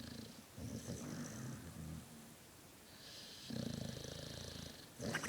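A sleeping dog snoring deeply, her loose cheeks puffing and flapping with the breath. There are two low, rattling snores, the first lasting about two seconds and the second starting about three and a half seconds in, with a hissing breath between them and a third snore starting near the end.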